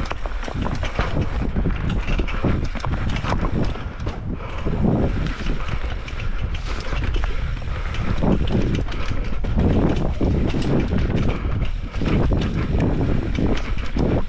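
Pole Stamina 180 mountain bike being ridden on a trail: wind rushing over the microphone under a constant rumble, with frequent knocks and rattles as the bike goes over rough ground.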